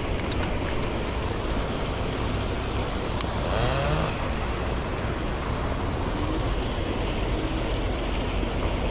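Steady outdoor background noise with most of its weight low down, like wind on the microphone or distant traffic, with a faint distant voice about three and a half seconds in.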